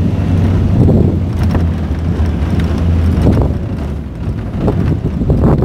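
Vehicle engine running with tyre and road noise on a dirt track, heard from inside the cabin; the engine hum eases somewhat about three seconds in.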